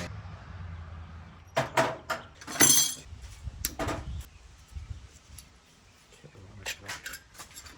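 Small metal turbocharger parts and tools clinking and knocking as they are handled during disassembly, with louder clinks about two to three seconds in and a run of lighter ticks near the end.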